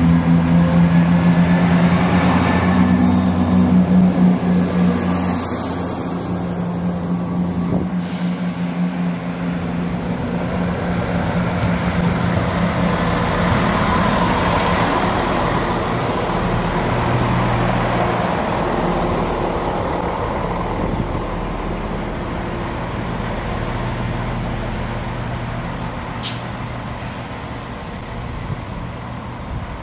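Class 170 Turbostar diesel multiple units at a station. For about the first eight seconds a steady diesel engine hum comes from a unit at the platform. Then the broad rumble of a train rolling along the track swells and fades, with one sharp click near the end.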